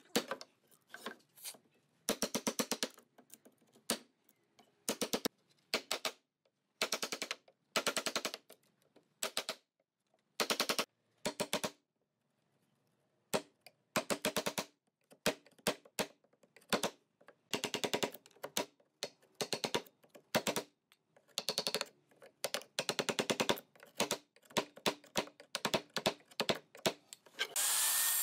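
Wooden mallet striking a steel chisel to chop a notch in a softwood beam: rapid runs of sharp knocks with short pauses between them. Near the end, an electric mitre saw starts up.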